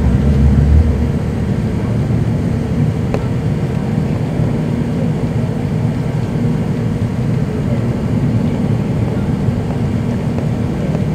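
Cabin noise inside an Airbus A380 in its climb after takeoff: the steady low rumble of its Rolls-Royce Trent 900 engines and rushing air, with a faint steady hum. A deeper rumble eases about a second in.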